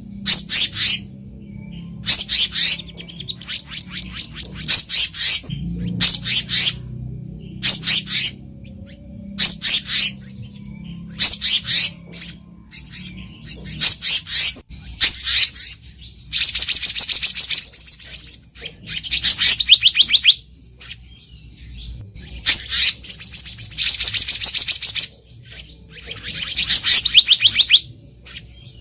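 Black-naped monarch singing: short, loud bursts of rapid high notes repeated every second or two, with longer fast trills of repeated notes in the second half.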